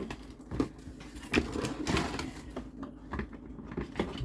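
Small plastic toy parts being handled, giving a handful of separate clicks and taps about half a second to a second apart.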